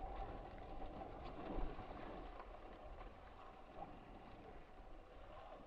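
Faint, steady rush and slosh of water along the hull of an RS600FF foiling dinghy under way, with a low rumble of wind on the microphone. It swells briefly about a second and a half in.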